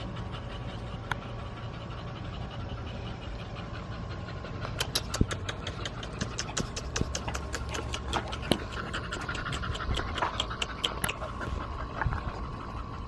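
An American Bully dog panting rapidly, about five breaths a second, over a steady low hum; the panting starts up plainly about five seconds in and fades near the end.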